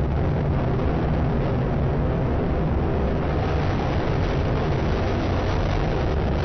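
H-2A rocket's first-stage engine and solid rocket boosters at full thrust during ascent: a loud, steady, deep rumble.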